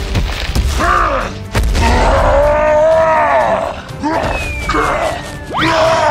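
A man's exaggerated, drawn-out groans and grunts, rising and falling in pitch, with thuds in the first second and a half and a thin whistle tone gliding down near the end, over background music.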